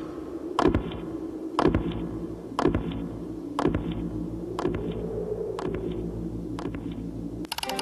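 Parade-step boots stamping on paving stones, one heavy strike about once a second, seven in all, each ringing briefly, with the last two fainter. A low steady drone runs underneath.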